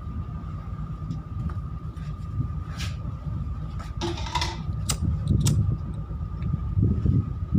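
Passenger ship's machinery heard from the open deck: a steady low rumble with a constant high whine above it, broken by a few faint clicks and knocks.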